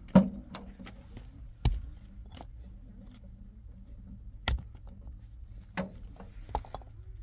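A handful of sharp, irregular knocks and clunks, about five in seven seconds, the loudest just after the start, over a faint steady low rumble.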